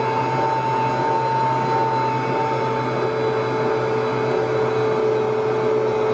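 Food processor motor running steadily, its dough blade turning flour into tortilla dough as water goes in; a continuous whine that sags slightly in pitch as the mix thickens.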